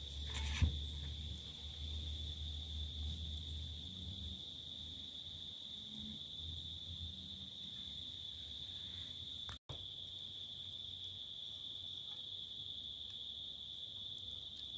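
Insects, cricket-like, chirring in one steady high-pitched tone that does not let up. A single knock sounds about half a second in, over some low handling rumble in the first few seconds.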